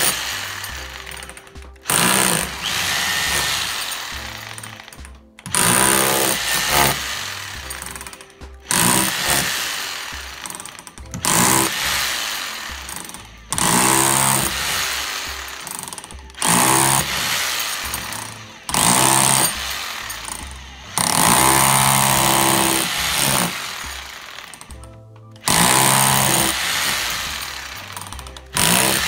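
Hammer drill boring into a cement wall with a masonry bit, running in repeated bursts of about two seconds with short pauses between them. Background music plays along with it.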